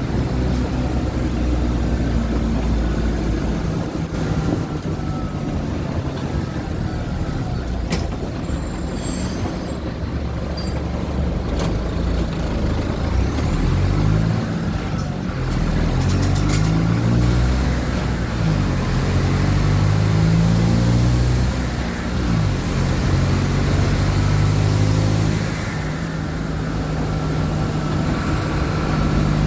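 Mercedes-Benz OF-1722M city bus's diesel engine heard from inside the bus, with a brief hiss of air about nine seconds in. From about halfway the engine pulls away, its pitch rising in steps through the gear changes, then drops back and runs more evenly near the end.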